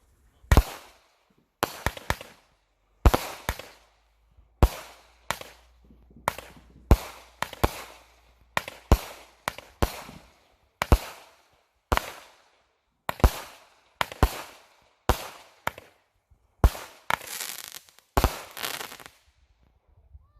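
Consumer fireworks going off in a long string of sharp bangs, roughly one a second, each trailing off in a short fading tail. A denser, louder run of bangs comes near the end.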